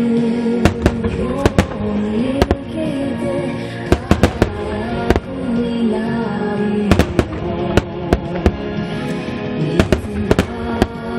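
Aerial firework shells bursting in a dense barrage: many sharp bangs at irregular intervals, at times several a second. The bangs sound over a melodic music track.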